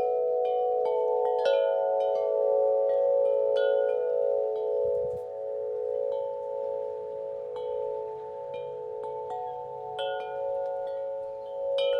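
Wind chimes ringing in the wind: irregular strikes whose overlapping tones ring on. The strikes come thick near the start, thin out in the middle and pick up again near the end.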